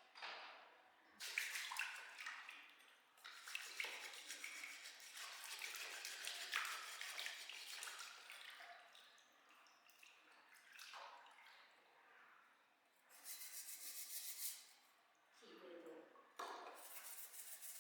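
Water running and splashing in several intermittent spells, with some dripping, as an old water heater's parts are washed out during cleaning.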